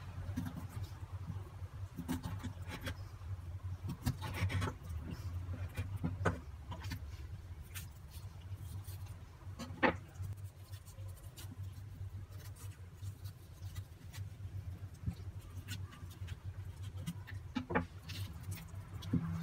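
A knife cutting raw lamb on a bamboo cutting board: scattered soft taps, scrapes and clicks of blade, meat and bone against the wood, with one sharper click about ten seconds in. A steady low hum runs underneath.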